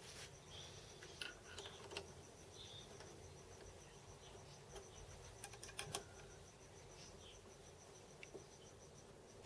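Near silence: a few faint clicks and taps of small metal parts being handled, with a steady high-pitched pulsing chirp running underneath.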